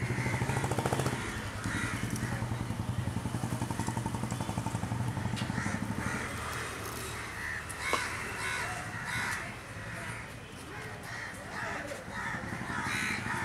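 Crows cawing repeatedly through the second half, over street background. In the first half a vehicle engine runs with a low steady hum that fades out about halfway in.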